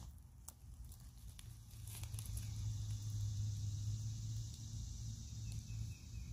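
Outdoor ambience: a few light crackles in the first couple of seconds, then a steady high hiss that fades near the end, over a low rumble.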